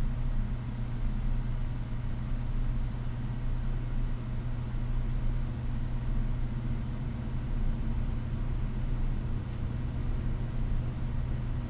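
Steady low hum of background room or equipment noise, even throughout, with faint light ticks every second or two.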